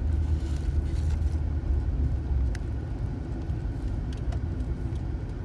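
Low rumble of a moving car heard from inside the cabin, easing somewhat about halfway through.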